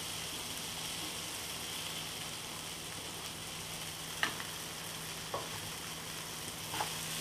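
Onion-tomato masala sizzling steadily in a nonstick frying pan as mashed boiled potatoes go in, with a few light taps of a wooden spatula against the pan about four, five and a half and seven seconds in.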